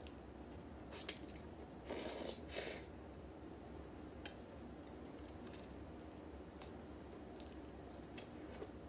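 Ramen noodles being slurped and chewed: two short wet slurps about two seconds in, then quiet chewing with small mouth clicks.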